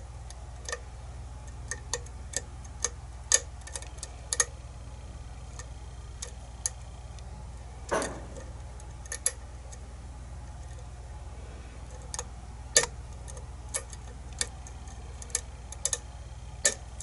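Irregular sharp clicks of a lock pick and tension tool working the pin stack of a kick-cylinder challenge lock, with a longer scrape about eight seconds in. The pins are being set into a false set, where the lock jams up. A steady low hum runs underneath.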